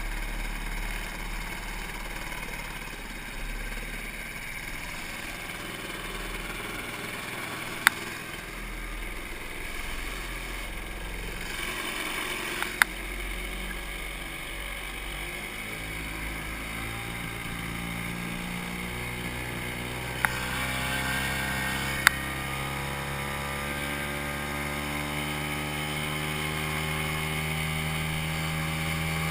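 Sears Gamefisher 7.5 hp outboard motor running steadily. About halfway through its pitch rises as it is throttled up, then it holds at the higher speed. Four sharp knocks are heard along the way.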